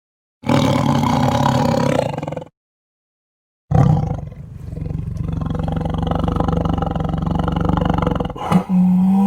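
Malayan tiger calls: one call of about two seconds, a pause, then a longer call of about four and a half seconds, and a new steady call beginning near the end.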